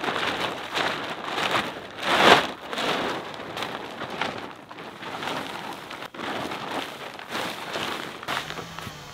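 Large plastic tarpaulin crinkling and rustling as it is unfolded, shaken out and pulled flat over grass, with a loud crackling swish about two seconds in.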